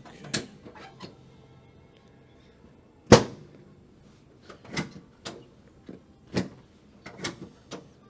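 About eight irregular sharp knocks and thumps from a chiropractic treatment table taking adjustment thrusts to the upper back, the loudest about three seconds in. Faint background music plays underneath.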